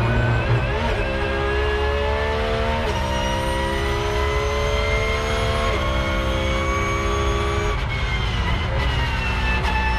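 Porsche 911 GT3 R's naturally aspirated flat-six race engine heard onboard, accelerating hard up through the gears. The pitch climbs steadily between quick upshifts about three and six seconds in, then the revs fall near the end as the car slows for the next corner.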